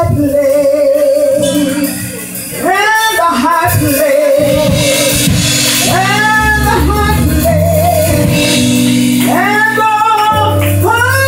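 A woman sings a slow gospel solo through a microphone and PA, holding long notes with a wide vibrato and sliding between pitches. Instrumental backing with sustained low bass and chord notes plays underneath.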